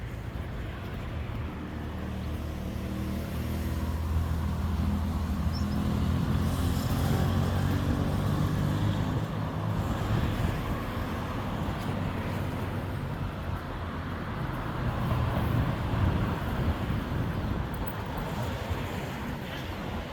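Street traffic: a motor vehicle's low engine hum builds over the first few seconds and stays strong until about halfway through, over the steady wash of passing cars. The traffic swells again near the end.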